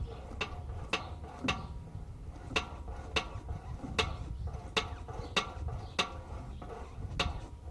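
Sharp clicks with a short metallic ring from the steering of a VW Passat CC, repeating unevenly about once or twice a second over a low steady rumble. This is the unexplained strange noise the owner is showing.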